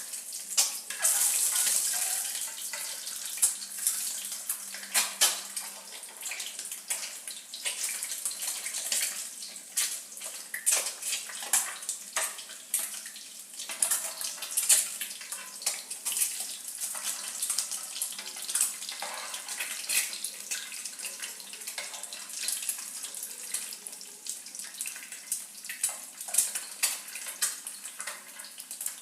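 Halved boiled egg whites frying in hot oil: a steady sizzle full of quick sharp crackles and pops.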